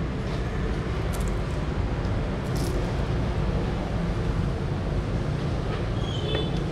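Steady low background rumble, with a few faint light clicks, such as chopsticks touching a plate.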